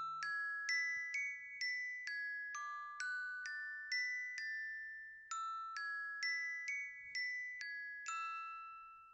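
Timer alarm going off as the ten-minute countdown runs out: a bright chiming melody of struck bell-like notes, about two a second, in two phrases with a short break midway. The last note rings on and fades.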